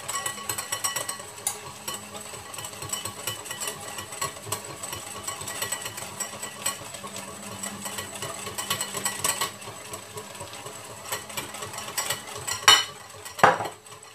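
Egg, sugar and cornstarch mixture being stirred briskly in a bowl as hot lemon juice is added a little at a time, the utensil clicking rapidly against the bowl. Two louder knocks near the end.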